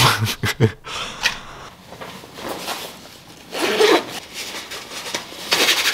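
Waterproof jacket zip being pulled and the fabric rustling, with a louder rasping stretch near the end.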